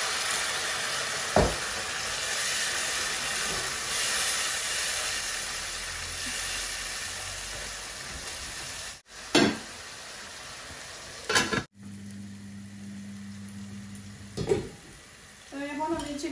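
Prawn curry simmering with a steady hiss in an aluminium pot while a wooden spatula stirs it, with a single knock about a second in. After a cut about nine seconds in come a few clicks and knocks of pot lids and a steady low hum.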